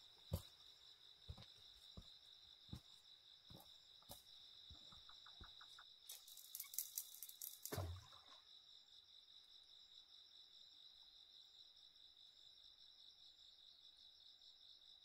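A steady, high-pitched chorus of night insects, crickets among them. Over it come scattered sharp knocks and clicks in the first few seconds, a quick run of ticks about five seconds in, and a rustle ending in a dull thud near eight seconds.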